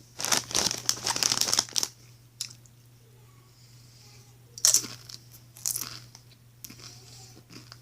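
Crunching of Doritos Nacho Cheese tortilla chips being chewed close to the microphone. There is a dense burst of crunches for about the first two seconds, then shorter bursts about five and six seconds in.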